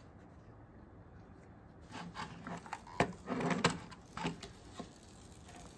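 A few plastic clicks and knocks as a duck staircase slide toy is handled and set up by hand, the sharpest click about three seconds in.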